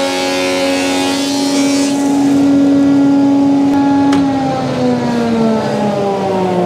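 Thickness planer running steadily, the hiss of an oak board passing through the cutters fading out about two seconds in. A click just after four seconds as the machine is switched off, then the motor winds down, its pitch falling.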